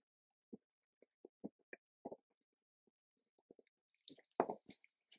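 A fork stirring thick batter in a bowl: irregular soft clicks and wet squishes as it knocks against the bowl and works flour, egg and water together. Near the end a little water is poured in from a glass, with a short splash, and the stirring gets busier.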